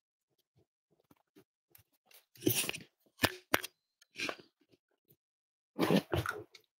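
Handling noise from a hand-held camera's microphone being moved and brushed: several short rustling, crackling bursts about two seconds in, again around three and four seconds, and once more near the end, with faint scattered clicks between them.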